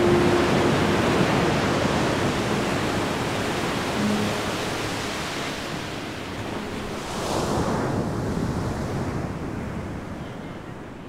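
Ocean surf washing up over a flat sandy beach: a steady rush of water that swells once, about seven seconds in, as a wave runs in, then fades away.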